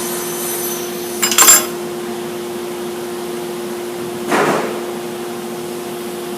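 Metal parts handled on a disassembled bandsaw: a sharp metallic clink a little over a second in, then a softer scrape just past the middle. A steady hum runs underneath.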